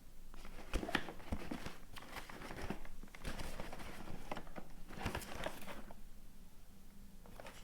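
Phone packaging being handled and opened: crinkling and rustling of wrapping with scattered clicks and knocks of the box.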